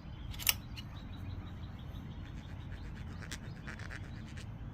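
Small metal clicks as a thread-locked crankcase cover screw is handled and fitted by hand: one sharp click about half a second in, then a few faint clicks near the end, over a low steady hum.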